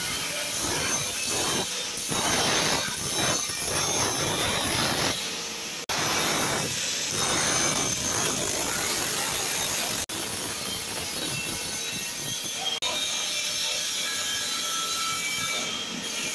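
Metalworking noise: an electric angle grinder cutting steel, then a hand hacksaw drawn back and forth through a steel rod clamped in a bench vise, in rhythmic strokes. The sound breaks off abruptly a few times.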